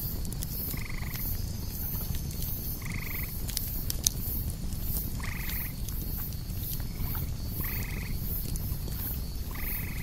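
Campfire crackling over a low rumble, with scattered pops and one sharp crack about four seconds in. Cicadas pulse high about twice a second. An animal gives a short call six times, about every two seconds.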